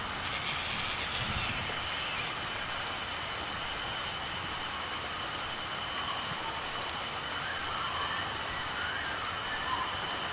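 Steady rain falling on foliage, with a continuous high-pitched insect trill from crickets holding one steady pitch over it.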